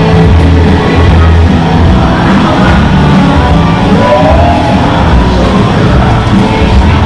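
Loud music with a heavy, pulsing bass line.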